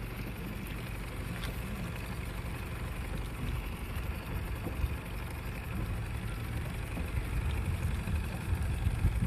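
A boat's outboard motor running steadily at trolling speed: a low, even hum under a steady hiss of wind and water.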